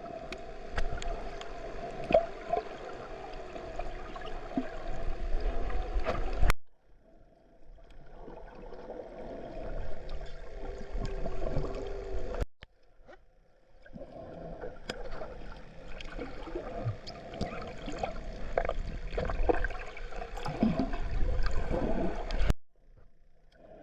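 Water sloshing and gurgling close to the microphone, in irregular bursts. It breaks off abruptly three times.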